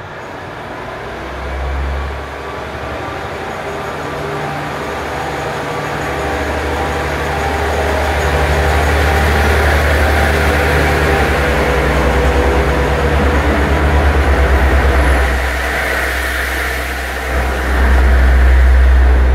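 KiHa 40 diesel railcar pulling away from a station, its diesel engine running under load as it accelerates, a low steady drone that grows louder, with the rattle and rumble of the cars rolling past. The sound is loudest near the end as a car passes close by.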